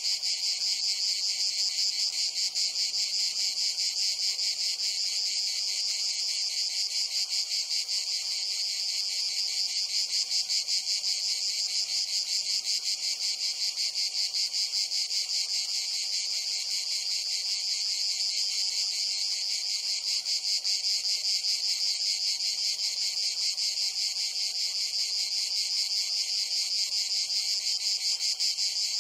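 Steady insect chorus: a continuous, high-pitched, fast-pulsing chirring that goes on without a break.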